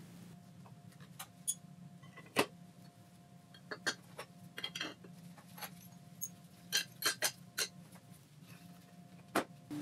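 Irregular sharp clicks and clinks of small metal parts, some fifteen to twenty of them, as the pieces of a hand plane are handled and set down.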